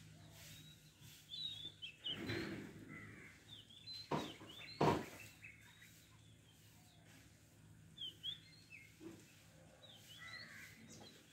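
Small birds chirping repeatedly in short high calls. About two seconds in there is a burst of rustling, and near the middle come two sharp cracks a little under a second apart, the loudest sounds.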